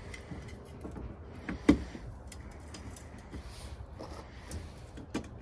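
A few scattered clicks and knocks of bolts and hand tools being handled while bolts are started into a mud flap bracket, the sharpest knock a little under two seconds in.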